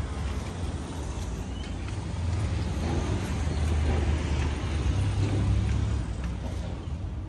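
Low rumble of a motor vehicle's engine, swelling a couple of seconds in and easing off near the end.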